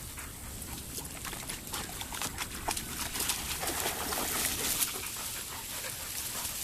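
Dogs moving about close by, with light rustling and scattered small clicks, a little louder in the middle.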